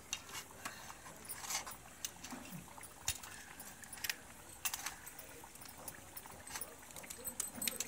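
Scattered light clinks and taps of steel plates and bowls being handled, over a faint steady hiss.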